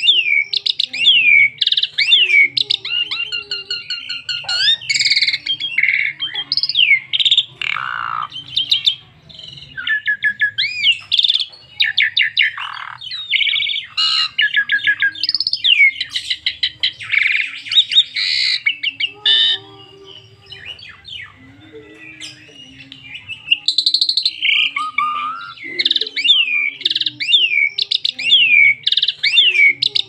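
Asian pied starling singing a long, varied song of whistles, chirps and fast runs of repeated notes, the 'full isian' song packed with varied phrases. The song eases into a short quieter lull about two-thirds of the way through, then resumes at full strength.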